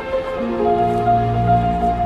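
Orchestral strings playing slow, sustained notes, with double basses bowing low held tones beneath; new notes come in about half a second in.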